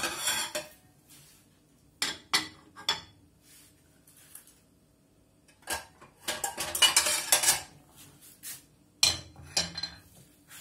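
Ceramic plates clinking and clattering as they are taken out and set down on a gas stove's metal grate, in several short bursts with pauses between.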